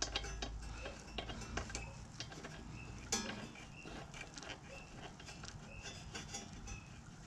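Faint, irregular small metallic clicks and ticks as a spark plug is threaded back into a lawn mower engine's cylinder head by hand.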